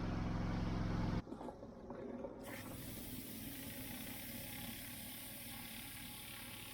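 A steady engine hum, cut off about a second in, then the steady hiss of a pressure washer's water jet spraying.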